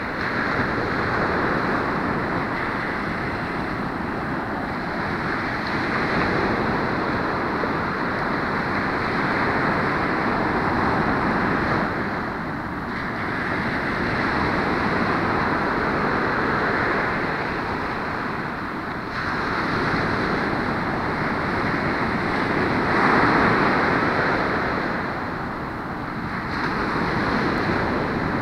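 Ocean surf breaking and washing up a sandy beach: a continuous rush of waves that swells and eases every few seconds, with the strongest surge about four fifths of the way through.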